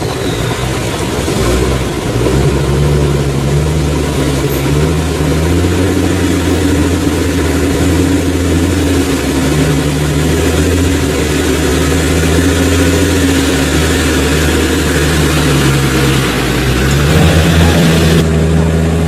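Off-road 4x4 engine running under load, its engine speed rising and falling several times as it works over rough ground.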